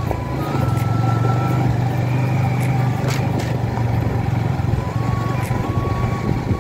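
Road vehicle running steadily, its low engine hum steady throughout, with music playing over it.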